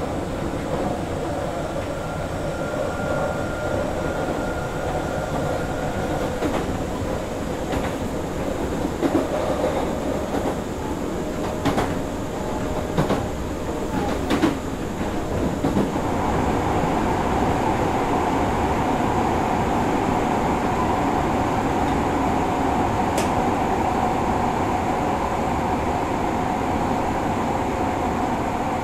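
Osaka Municipal Subway 66 series train running between stations, heard from inside the car: steady wheel and track noise with a few sharp rail-joint clicks. About halfway through, the running noise grows louder and steadier, with a held hum.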